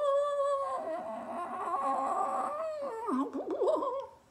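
A man's high, wordless vocalizing while he signs: a long held tone, then a quick wavering warble about three seconds in, stopping just before the end.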